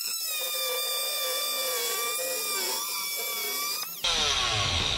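Small corded electric power cutter running with a steady high whine as it cuts through a black plastic kayak thigh hook. About four seconds in, the sound changes abruptly to a louder rumble and hiss, with a pitch that falls for about a second.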